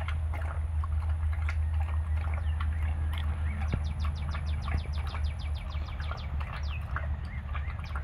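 A dog lapping milk from a stainless steel bowl: quick, rhythmic tongue slaps and splashes, quickest in the middle stretch, over a steady low hum.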